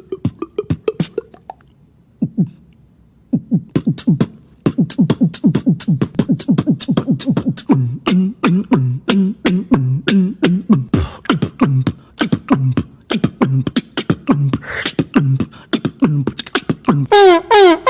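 Beatboxing by one voice: rapid mouth-made drum clicks and snare-like hits that pause briefly about two seconds in, then return dense and fast, with low hummed bass notes under them in the middle and a long gliding pitched sound near the end.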